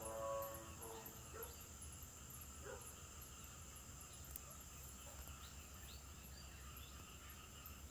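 Faint, distant dogs barking, one drawn-out call about the first second and a few short barks after, over steady high-pitched insect chirping.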